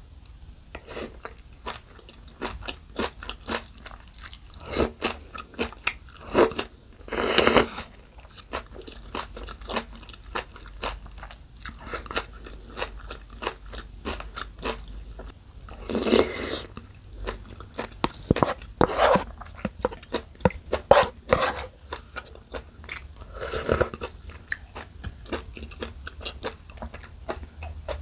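Close-miked chewing and crunching of spicy noodles with crisp bean sprouts and young radish kimchi: a dense run of small crunches as the food is bitten and chewed, with a few louder, longer bursts.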